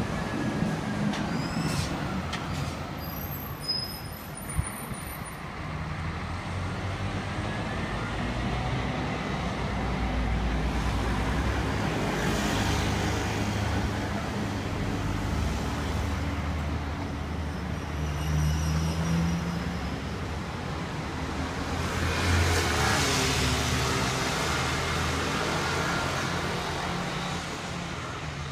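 Street traffic: a Scania coach's diesel engine as it drives off, then cars and motor scooters passing, the noise swelling twice as vehicles go by close.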